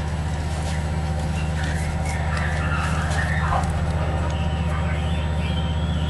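Slow-moving rail maintenance vehicle with a crane, creeping along the train tracks: a steady low engine drone with high wavering screeching over it.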